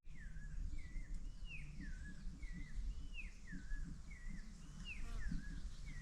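A bird singing a run of short whistled notes, about two a second, each swooping up and down in pitch, over a low steady rumble.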